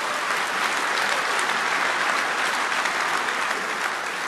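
Large audience applauding, a dense clapping that builds over the first second and then holds steady.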